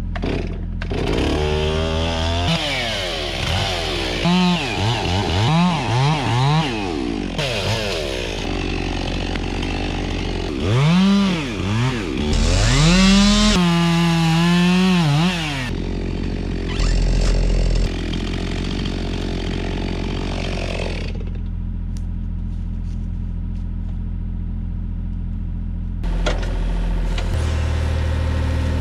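Deere 27D mini excavator's diesel engine running under hydraulic load. A whine rises and falls in pitch again and again as the controls are worked, and holds steady once for about two seconds, over the first half or so. It then settles to a steady run.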